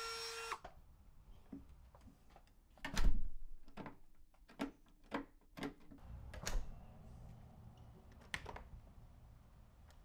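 A cordless rotary tool whining at high speed, cut off about half a second in. It is followed by scattered clicks and knocks from a deadbolt's key and thumb turn being worked, the loudest about three seconds in.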